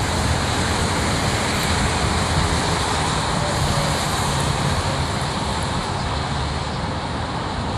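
Steady traffic noise from cars and trucks passing on a multi-lane freeway below: a constant wash of tyre and engine sound.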